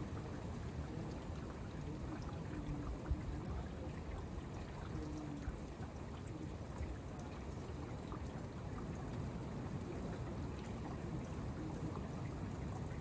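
Steady rain with gusty wind, the wind rumbling heavily on the microphone, with scattered small drip ticks and one brief knock about three seconds in.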